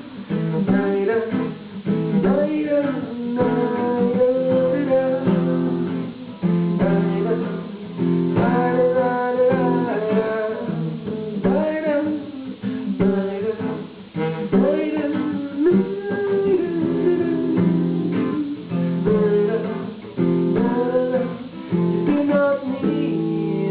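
Acoustic guitar playing a picked instrumental passage, with a chord left ringing near the end.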